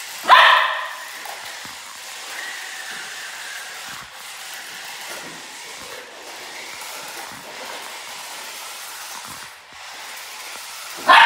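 Miniature schnauzer barks once just after the start and again near the end, with a steady hiss and small scuffles between the barks.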